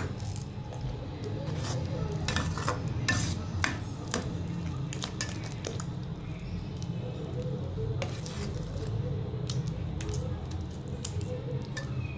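Metal spoon clinking and scraping against an aluminium pot while mashing and stirring thick cooked dal and spinach, with wet squelching. The knocks come irregularly, over a steady low hum.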